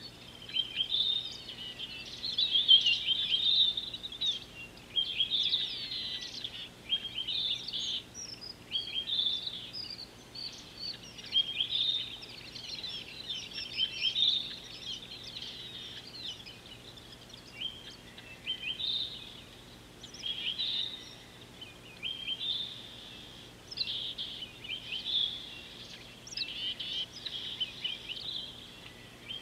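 A chorus of small birds chirping and twittering: many quick, high, sweeping calls coming in short bursts, one after another.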